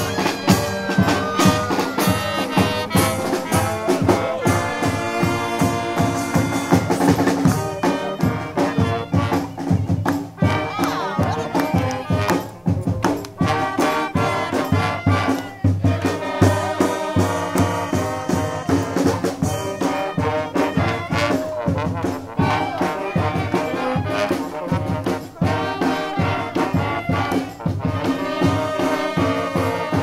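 Brass street band playing a rock song, with trumpets and trombones carrying the tune over a low brass bass line and a steady drum beat.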